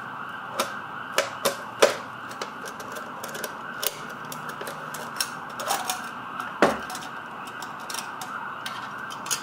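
Irregular clicks and taps of packaging and hard parts being handled as a box is worked open, with a couple of sharper knocks about two seconds in and again past six seconds, over a steady faint hiss.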